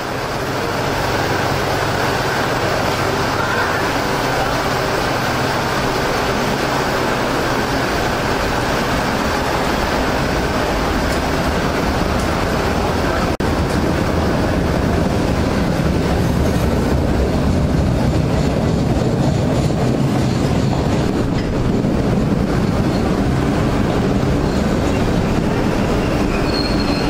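Boston Red Line subway train approaching through the tunnel and rolling into the platform: a loud, steady rumble of steel wheels on the rails, with a brief high wheel squeal near the end.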